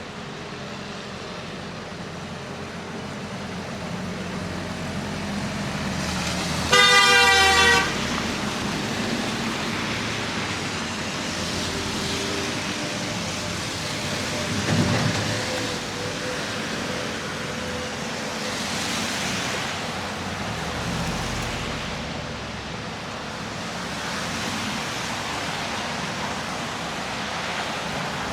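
Steady city street traffic, with a car horn sounding once for about a second roughly a quarter of the way in, the loudest sound.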